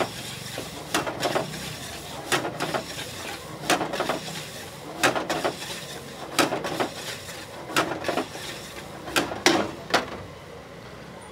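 A metal spatula knocking and scraping in a frying pan as chopped vegetables are stir-fried over a gas flame. The strokes come in regular clusters roughly every second and a half, over a steady sizzle.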